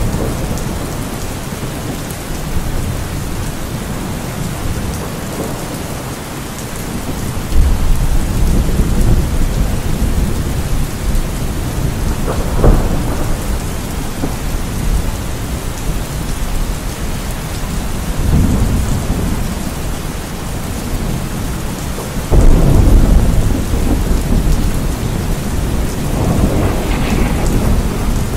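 Steady rain with rolls of thunder swelling every few seconds, a sharper crack near the middle and the heaviest rumble about three-quarters of the way through.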